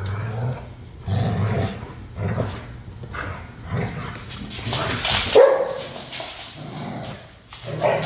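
Pit bulls and a Malinois growling and snarling in rough play-fighting over a tug toy, in repeated low growls. About five seconds in comes a louder, higher-pitched bark.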